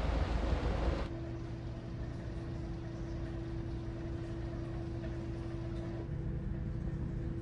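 Wind and ship noise on a ferry's open deck for about a second, then a sudden cut to the steady low hum of the ferry's machinery heard indoors, with a constant tone running through it.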